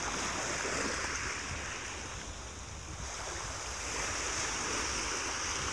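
Small waves from a calm sea breaking and washing up over shingle at the water's edge, the wash swelling, easing a little about halfway through, then swelling again.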